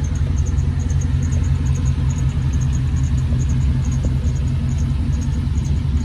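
1982 Chevrolet C10 pickup's engine idling steadily, a deep even low rumble.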